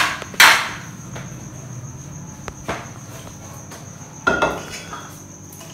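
Steel kitchen vessels and utensils knocking and clinking on the counter: a sharp clatter about half a second in, a lighter knock, and another clatter just past four seconds. Under them runs a steady high-pitched whine.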